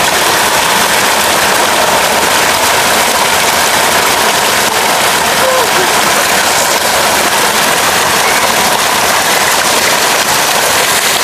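Water gushing from two spouts in a stone wall and splashing into a bathing pool: a steady, loud rush.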